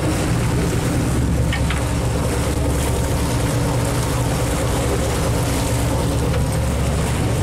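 A fishing party boat's engine running with a steady low hum, under a constant rush of wind and water.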